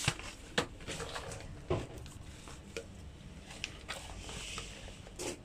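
Hands handling a hair ponytail and its printed card-and-plastic packaging: soft rustling with a few scattered light clicks and taps.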